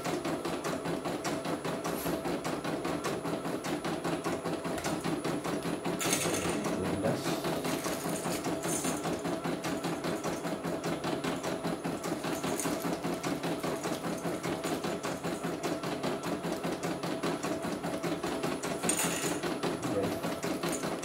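CNY computerized embroidery machine stitching a design, its needle running in a rapid, even rhythm that holds steady throughout.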